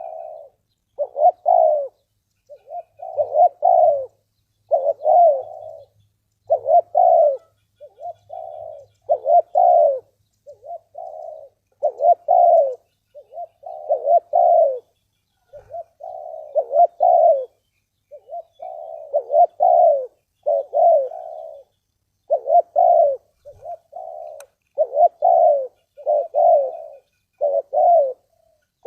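Spotted dove cooing over and over, phrase after phrase of low, hoarse coos with barely a pause between them.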